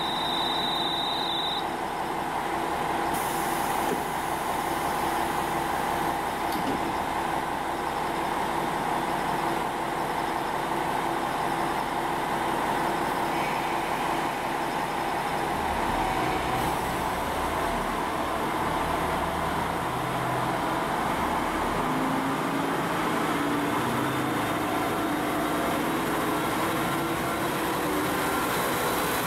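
KiHa 40-series diesel railcar idling at the platform, then throttling up as it pulls away; the engine note climbs over the last several seconds. A high steady beep sounds for about the first second.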